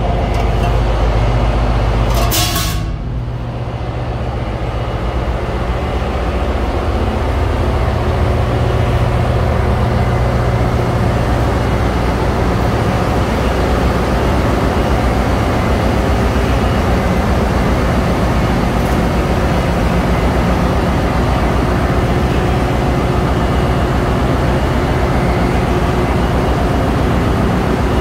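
Engine-room noise of running marine diesel machinery: a loud, steady low drone. A brief hiss comes about two and a half seconds in.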